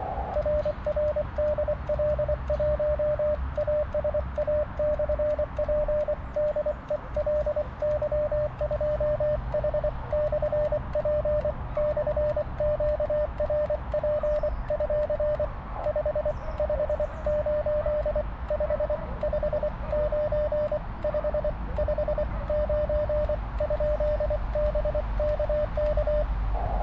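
Morse code (CW) from an Elecraft KX2 transceiver during a 40-meter contact: a steady single-pitch tone keyed rapidly on and off in dots and dashes, over a steady hiss of static.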